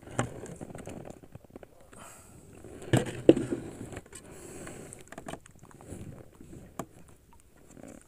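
Scattered light knocks and clatter of things being handled and set down on a boat deck, with two sharper knocks about three seconds in.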